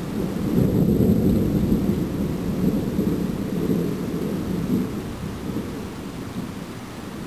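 Thunder rumbling low and long, swelling about a second in and slowly fading toward the end.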